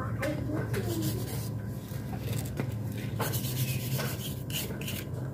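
Hand scrubbing or scraping on the oily parts of a motorcycle engine being cleaned: short, uneven rubbing strokes over a steady low hum.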